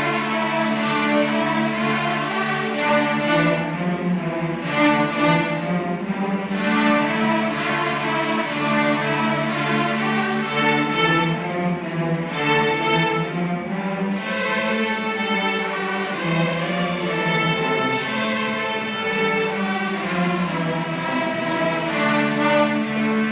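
Middle school string orchestra playing, violins and cellos together in long held, overlapping notes.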